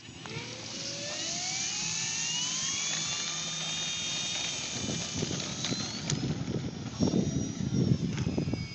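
Electric motor of an RC Hawker Hurricane 25e model warbird, a whine that rises in pitch as it is throttled up over about three seconds and then holds steady. From about halfway in, gusty wind buffets the microphone with low, uneven rumbling.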